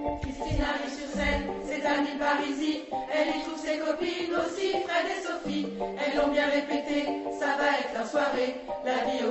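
Women's choir singing in French, several voices together, with piano accompaniment.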